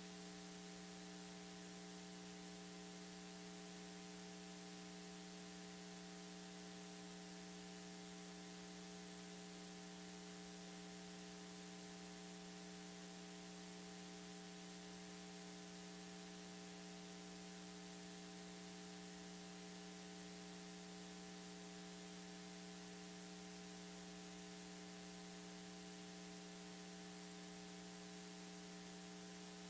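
Faint, steady electrical mains hum with a light hiss and nothing else, where the sermon's speech has dropped out of the recording.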